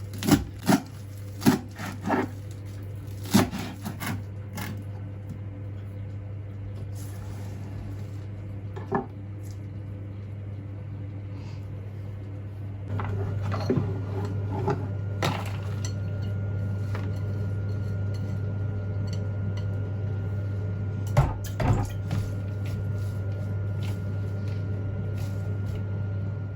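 Dishes and cutlery clinking and knocking, a quick series of sharp clinks at first, then a few more midway and a pair near the end, over a steady low hum.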